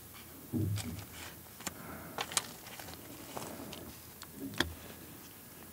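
Plastic sauce sachet being squeezed out into a small dish: quiet handling noise with a few soft clicks and ticks, and a low soft thump about half a second in and another near the end.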